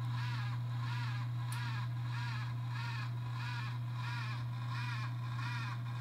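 X570 motherboard chipset fan making a grinding noise: a steady low hum under a rough, warbling grind that swells and fades about twice a second. The grinding comes from the small fan's worn-out bearings.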